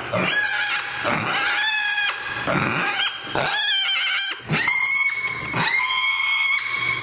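Mini pig squealing: a run of about six high, drawn-out squeals, each lasting roughly a second.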